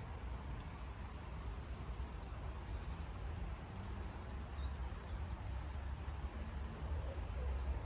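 A few faint, short, high-pitched bird chirps over a steady low rumble of outdoor background.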